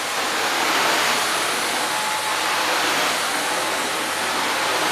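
Miele Swing H1 Powerline stick vacuum cleaner running on its minimum power setting while being pushed over low-pile carpet: a steady rush of motor and suction airflow.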